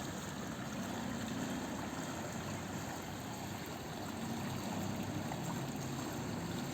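Water flowing steadily through a floodway channel, an even, unbroken rush of noise.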